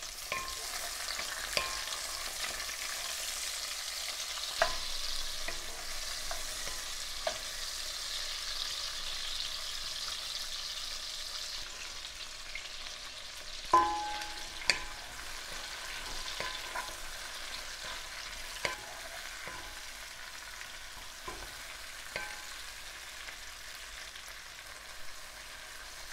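Onion and tomato sizzling in oil in a pot, stirred with a wooden spoon, with scattered light clicks. About fourteen seconds in there is one sharp knock with a short ring, and the sizzle is a little softer after it, with dried chiles now in the pot.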